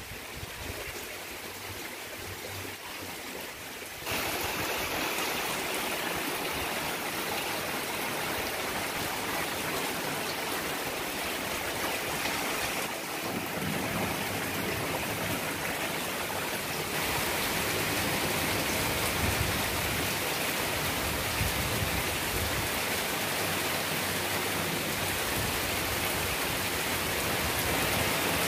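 Steady rain falling, a continuous hiss that gets louder about four seconds in.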